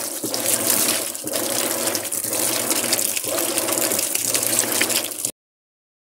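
Whirlpool top-load washing machine filling with water while its agitator churns the clothes: gushing, splashing water over a steady motor hum, surging and dipping about once a second. It cuts off abruptly about five seconds in.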